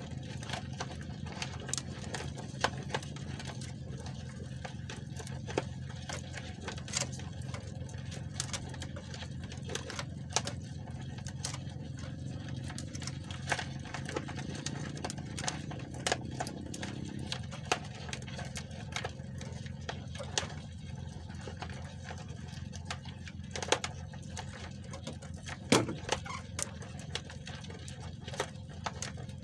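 Fishing handline being hauled in hand over hand from a small wooden outrigger boat: scattered clicks, light knocks and drips over a steady low hum.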